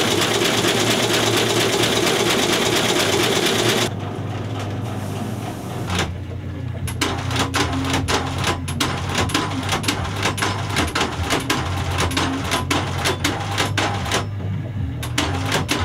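Shoe-repair sole-stitching machine running over a steady motor hum, its needle making rapid, regular clicking strokes as a sole is fed through. It stops briefly near the end and starts again. The first few seconds hold a louder, dense machine noise.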